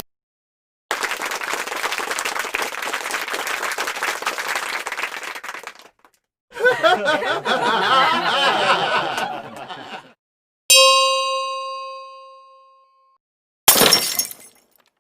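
A run of separate stock sound effects with short silences between them: a steady hiss-like noise for about five seconds, then a noisy stretch with wavering tones for about three and a half seconds, then a single bell-like ding that rings out over about two seconds, and a short sharp burst near the end.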